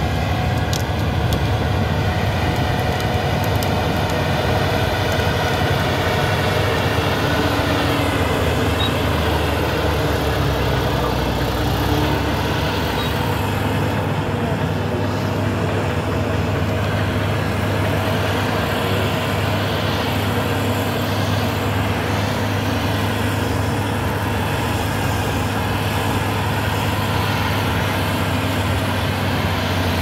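Komatsu D375 bulldozer's large diesel engine running steadily under load as the dozer pushes coal with its blade.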